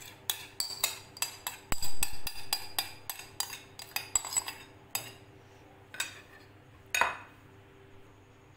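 Metal spoon scraping and tapping against the sides of a glass bowl as thick mango pulp is scraped out into another glass bowl. A quick run of clinks lasts about four seconds, followed by three single knocks about a second apart, the last one the loudest.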